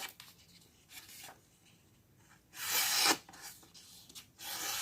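Leatherman Surge's plain main knife blade slicing through paper in a sharpness test, in two long cutting strokes about two seconds apart, with a faint short scrape before them. The blade cuts fairly sharp but could be sharper.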